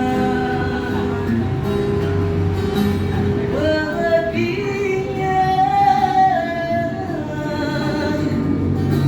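A street busker singing to acoustic guitar accompaniment, the voice holding long wavering notes through the middle.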